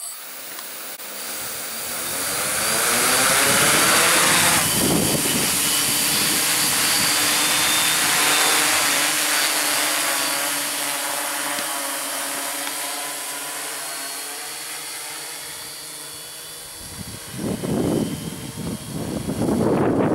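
Hexacopter's six electric motors and propellers spinning up for lift-off, then a steady multi-tone whine as it flies. Near the end, uneven gusts of rushing rotor wash hit the microphone as the hexacopter hovers close.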